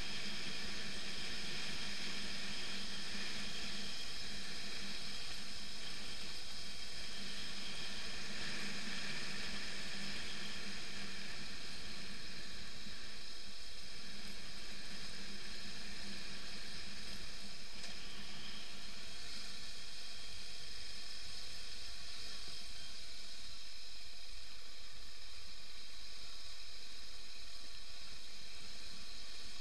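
Steady, even hiss of wind and road noise from a motorcycle riding a gravel road, with no distinct engine note; a low hum underneath fades out about twelve seconds in.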